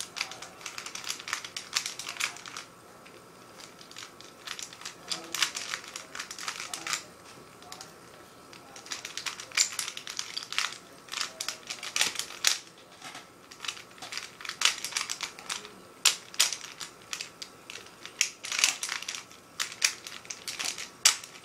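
Rubik's cube being turned by hand during a solve: quick runs of plastic clacking as the layers turn, in bursts of one to three seconds with short pauses between.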